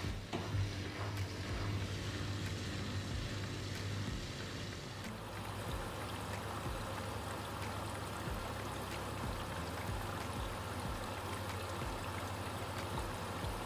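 Vestel washing machine at the start of a cycle, water rushing steadily into it, over a constant low hum; the rush grows brighter about five seconds in.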